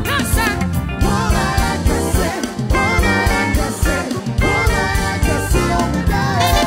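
Live band playing an upbeat gospel song: a steady drum beat under horns (trumpet and saxophone) and congas, with a singer's voice over the top.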